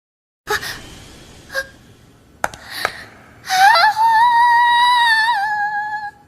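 An anime sound clip: a few sharp clicks and knocks over a noisy background, then a high-pitched voice holding one long cry for about two and a half seconds, rising at its start and wavering near the end.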